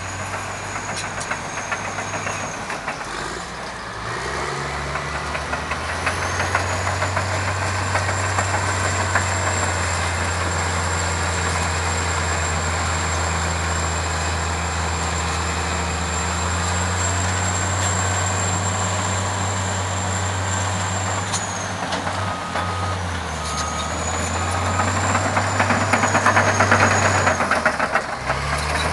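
Heavy diesel engines of a Caterpillar D10T crawler bulldozer and Caterpillar 631 wheel tractor-scrapers working hard under load, the engine note shifting as they work the cut. A high whine rises, holds and falls away. A back-up alarm gives a few short beeps about two-thirds of the way through.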